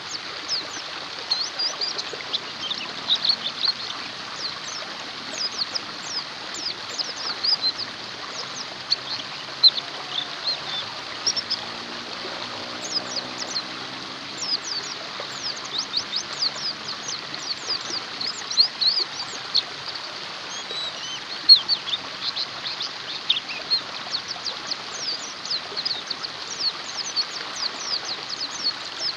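White-eyes (pleci) chirping: many short, high, quickly sweeping notes in a dense, busy run, over a steady rush of running water.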